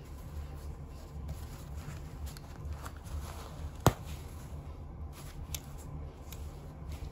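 Fabric rustling as a garment is handled, with one sharp click about four seconds in as a metal snap fastener is popped open.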